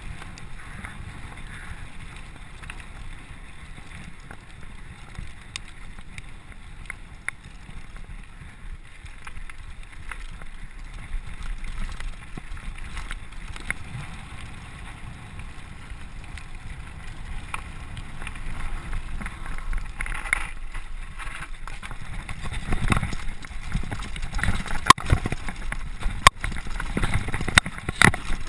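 Downhill mountain bike running fast over a gravel and dirt trail: a steady rush of wind on the camera microphone and tyre noise, with the bike rattling and knocking over rough ground, getting louder and bumpier in the second half with several sharp knocks near the end.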